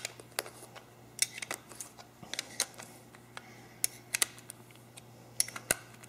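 Irregular light metallic clicks and taps of a small wrench turning the float bowl nut tight on a Tecumseh snowblower carburetor, over a faint steady hum.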